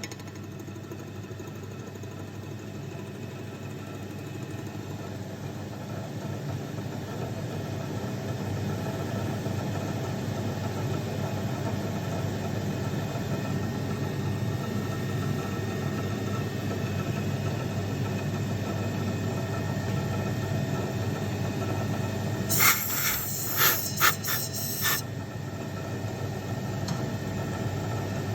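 Milling machine running steadily while cutting a snap ring groove for a crankshaft roller bearing, its sound slowly building over the first several seconds. Near the end, a quick cluster of four or five short, loud, harsh bursts.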